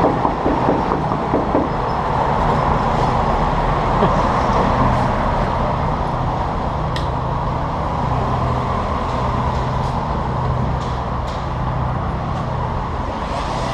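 Steady street traffic noise with a low, even engine hum, and a few faint clicks.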